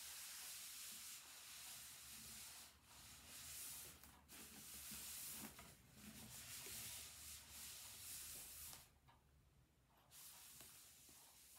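Faint rustling and crinkling of paper wrapping as a ukulele is slid up out of it, with a brief lull about nine seconds in.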